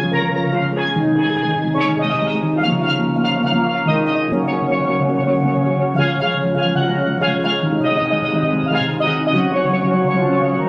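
Background music: a melody of struck, ringing notes over a steady low accompaniment.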